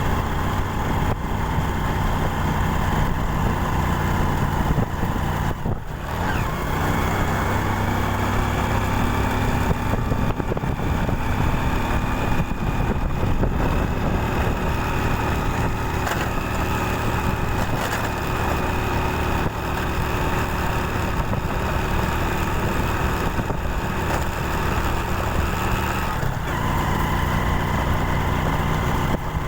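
Engine of a 110 cc motorcycle running under way, with steady road and wind noise. The engine note dips sharply about six seconds in and then climbs slowly, and dips and rises again near the end.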